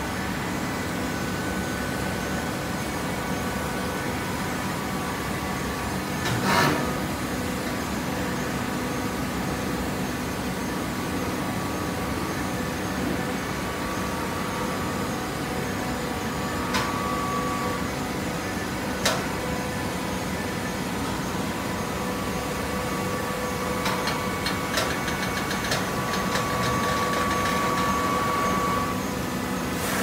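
Hydraulic horizontal baler running: a steady motor and pump hum with a loud clank about six seconds in, a few sharp clicks, and a louder held whine for a few seconds near the end.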